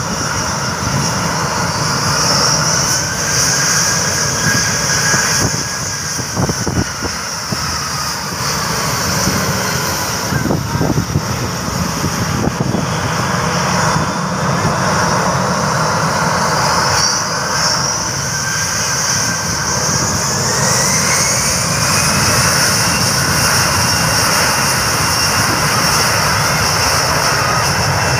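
Citilink Airbus A320's twin jet engines running as the airliner moves along the runway before takeoff. The engine whine rises in pitch a couple of seconds in, eases off, then rises again past the middle and holds high near the end as the engines spool up.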